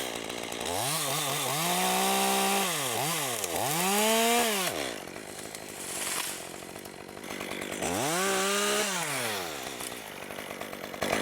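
Two-stroke chainsaw revved up and down in several bursts, held briefly at high revs and dropping back to a low idle between them, with a longer stretch at idle in the middle.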